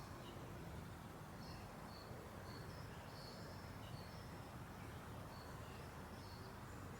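Faint suburban garden ambience: short, high chirps repeating every half second or so over a steady low background rumble.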